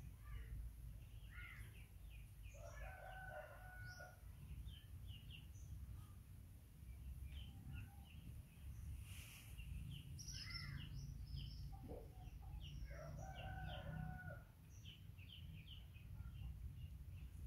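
A rooster crowing twice, about ten seconds apart, each crow a few short rising notes ending in a long held note. Small birds chirp throughout.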